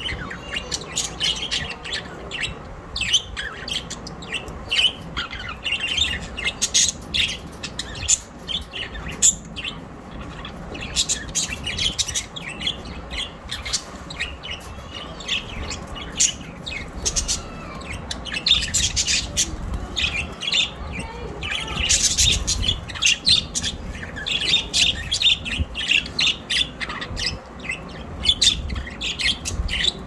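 A flock of budgerigars chirping and chattering without a break, many short calls overlapping one another.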